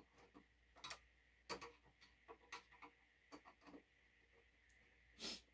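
Faint, irregular metal clicks and taps from a TV wall-mount bracket being handled and tilted on the back of a TV, its arms being tried for angle. A short rush of noise near the end.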